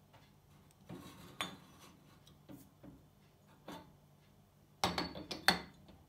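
Glazed ceramic teapot clinking against an aluminium stovetop coffee maker as it is handled and set down on top of it: a few light knocks, then a burst of louder clinks near the end.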